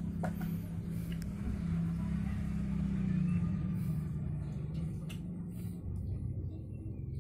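A motor vehicle engine running with a steady low hum, beginning to fade near the end, with a few faint clicks.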